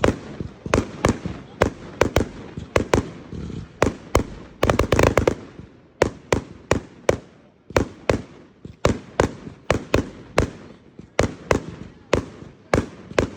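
A Dragon Fury 100-shot firework cake firing a string of sharp bangs, about two a second, with a dense crackling flurry about five seconds in.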